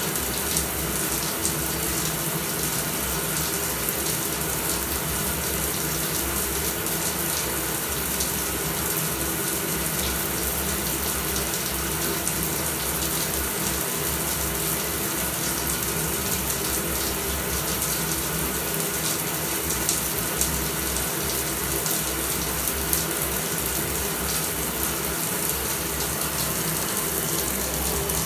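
Shower running: a steady spray of water falling and spattering, unbroken throughout.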